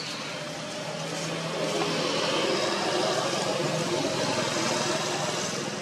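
A motor vehicle engine passing, growing louder about a second and a half in and easing off near the end.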